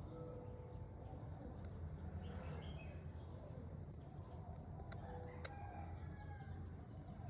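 Faint distant fowl calls over a low steady hum, with one sharp click about five and a half seconds in.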